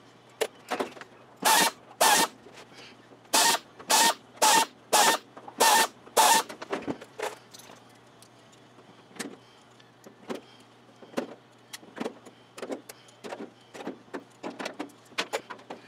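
Pneumatic air drill run in short bursts of about half a second, roughly eight times in quick succession, drilling out holes in a thin aluminium wing skin to 1/8 inch. After the bursts come quieter, scattered clicks and taps.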